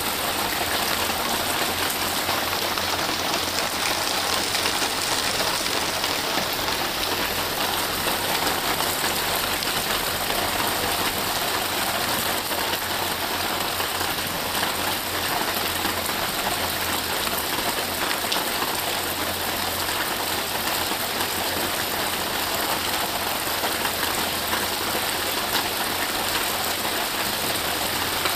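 Steady rain falling, an even hiss that holds at the same level throughout with no breaks.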